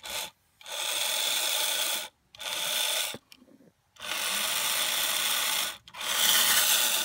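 Aurora AFX slot-car truck's small electric motor and gears buzzing in starts and stops, about five runs each up to about two seconds long, as the middle set of wheels spins.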